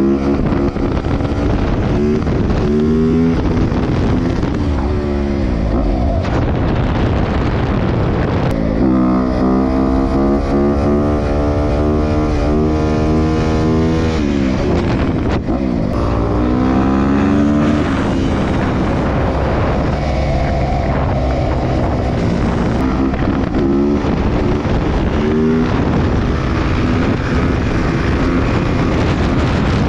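Dirt bike engine being ridden, its pitch rising and falling again and again with the throttle, and held steadier for a few seconds near the middle.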